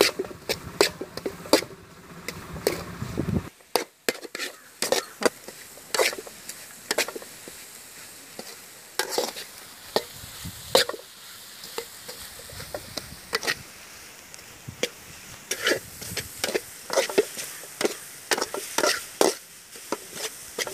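Steel ladle scraping and clinking against an aluminium pot in irregular strokes, stirring a scrambled egg fry over a faint sizzle.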